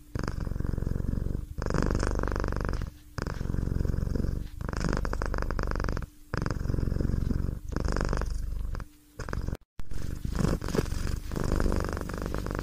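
Domestic cat purring in steady runs of about a second and a half, each broken by a short pause, with a brief drop-out near the end.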